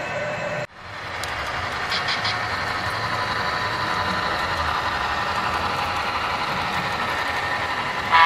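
Model Santa Fe F-unit diesel locomotive going by with its diesel engine sound running steadily, and a few short clicks about two seconds in. The sound drops out for a moment less than a second in, at an edit, and a louder moment comes right at the end.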